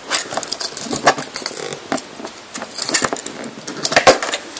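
Close handling of a small pocketknife and a twisted length of wire: irregular small clicks, taps and rustles as the wire and knife are turned over in the hands.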